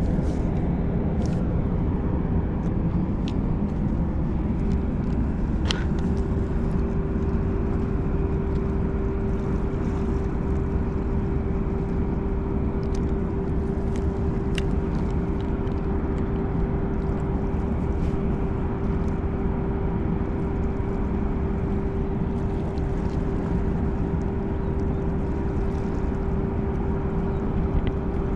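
Steady low drone of a ship's engine: a constant hum over a rumble, unchanging throughout, with a few faint clicks.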